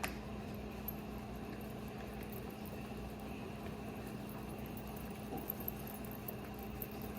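Steady low hum over faint kitchen background noise, with one sharp click at the start and a few faint ticks and taps.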